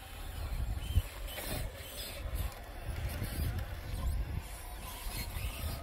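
Axial SCX6 RC rock crawler's electric motor and geared drivetrain whirring as it creeps up over rock, with a sharp knock about a second in. Wind rumbles on the microphone underneath.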